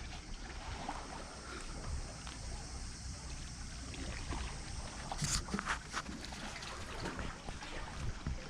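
Wind buffeting the microphone over water lapping, with a few sharp knocks a little past halfway.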